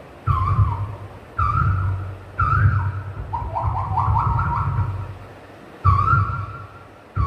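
A mimic's whistled calls: short high notes about a second apart, each dipping in pitch, with a quick warbling run of notes in the middle, and a low rumble under each call.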